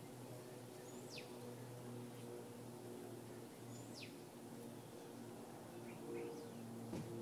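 Faint bird calls: two clear high whistles sweeping downward, about a second in and about four seconds in, and a few shorter chirps later. Under them runs a low steady hum.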